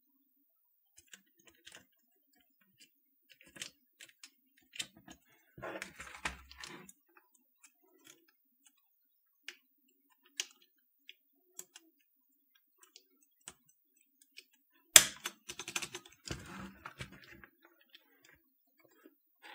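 Plastic keycaps being pushed and clipped onto the clicky keyswitches of a Canon TypeStar 4 keyboard: scattered sharp clicks and taps, with a busier clatter about six seconds in and again from about fifteen seconds, which opens with the loudest knock.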